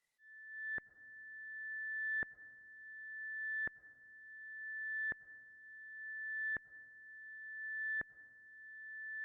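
A high, steady electronic tone, like a sine-wave beep, that swells louder and then cuts off sharply with a click. It repeats about every second and a half, six times, as an eerie pulsing sound effect.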